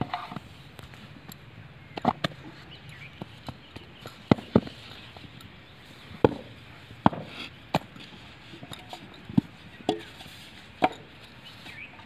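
Sharp knocks and thuds, unevenly spaced about once a second, from mud bricks being moulded by hand: wet clay thrown into wooden brick moulds and the moulds worked on the hard ground.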